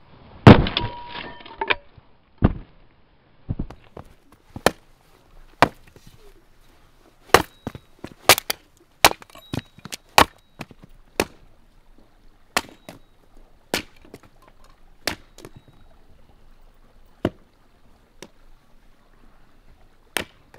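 Hatchet chopping a log into kindling on a wooden chopping block. The loudest blow comes about half a second in, with a ringing tail of about a second, followed by some twenty sharp chops at an uneven pace.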